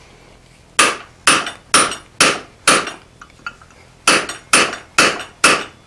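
Hand hammer striking a round punch driven into the glowing eye of a 4140 steel hammerhead on the anvil, stretching the punched hole larger. Sharp ringing blows about two a second: five, a short pause, then five more.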